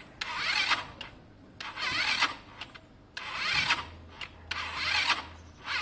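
Electric starter motor of a 125cc four-stroke scooter engine, run off a car battery, whirring in short bursts about four times. It cranks the engine over sluggishly and the engine does not catch.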